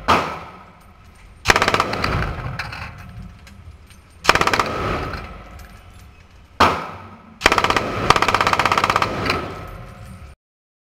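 Belt-fed MG42 machine gun firing a series of short automatic bursts, very rapid shots in each, the longest burst near the end; each burst rings on and fades in the enclosed range booth.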